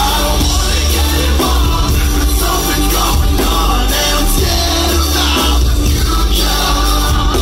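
Live band music played loud through a venue PA, with a heavy, steady bass and drums and a voice singing over it.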